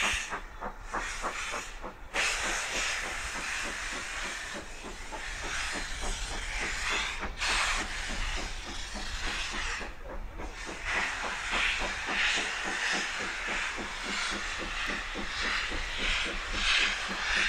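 Steam locomotive, the LMS Coronation Class Pacific No. 6233 'Duchess of Sutherland', working its train away with its cylinder drain cocks open. A loud steam hiss runs over fast, regular exhaust beats.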